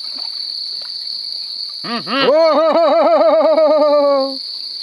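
Night insects chirring steadily in one high, even tone. About two seconds in, a loud pitched call with a rapid, regular warble joins them, holds for about two and a half seconds and then stops.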